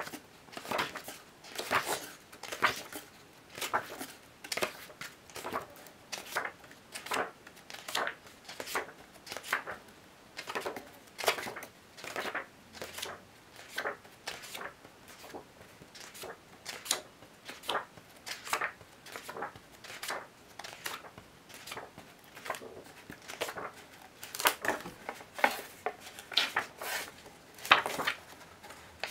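Thick glossy pages of a large hardcover photo book being flipped one after another. Each turn is a short papery swish or flap, coming irregularly about one or two a second.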